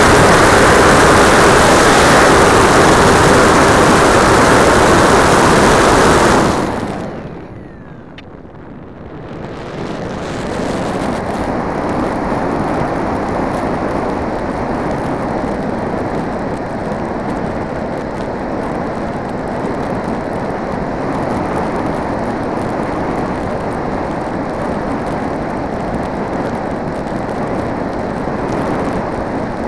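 Onboard sound of a Multiplex Blizzard RC model plane: the motor and propeller run loud with a steady whine, then cut off about six seconds in. After a brief lull, a steady rushing noise of air over the plane follows.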